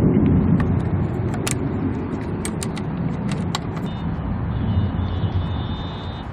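Parking-lot vehicle noise: a low rumble, loudest at the start, with scattered clicks and jingles. A car horn sounds steadily for about two seconds near the end.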